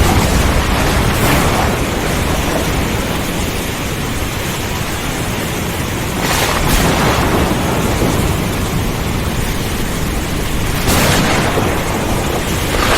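Thunderstorm: steady rain under a continuous low rumble of thunder, with sharper thunder cracks a little over a second in, about six seconds in and about eleven seconds in.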